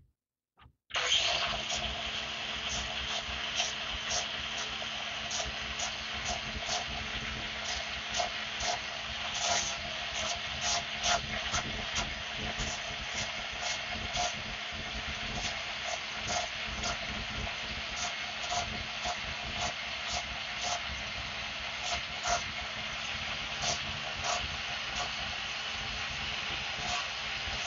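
Cordless angle grinder starting about a second in and running steadily with a high whine, frequent scraping clicks riding on it, as it cuts a steel bolt down to size.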